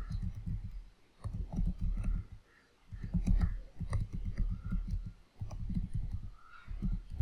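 Computer keyboard being typed on: runs of quick keystroke clicks with a dull low thud under them, broken by three short pauses.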